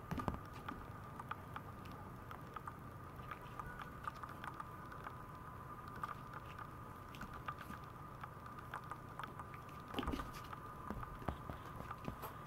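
Maltese puppy's claws ticking and pattering on a vinyl floor as it moves and rolls about, with a soft thump about ten seconds in. A steady faint high hum sits underneath.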